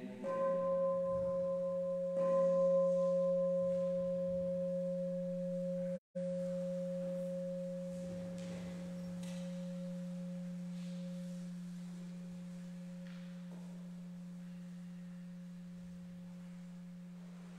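Buddhist temple bowl bell struck twice, about two seconds apart, its deep pure tone ringing on and slowly fading away. The audio cuts out briefly about six seconds in.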